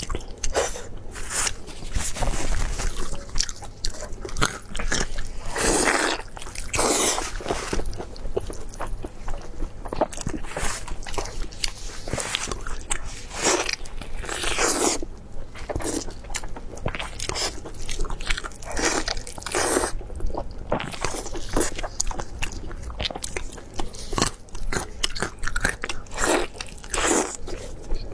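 Close-miked eating: repeated crunchy bites and chewing, each bite a short crackling crunch at an irregular pace.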